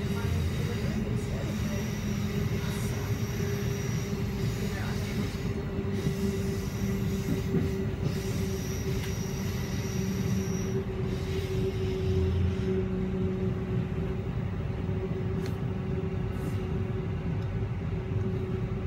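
Interior of a moving Queensland Rail SMU 260 electric multiple unit: the steady rumble of wheels on track under a constant electric hum. A thin high whine comes and goes twice.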